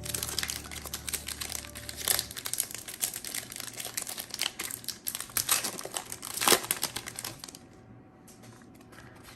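Foil Pokémon booster pack wrapper being opened, a dense run of crinkling and crackling that dies down about three-quarters of the way through.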